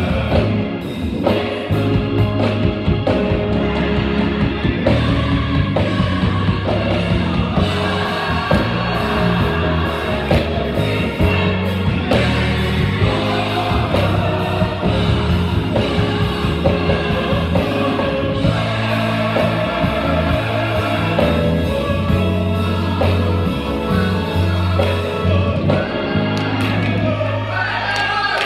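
Live gospel music: a choir and solo singers with instrumental backing and a steady low bass line.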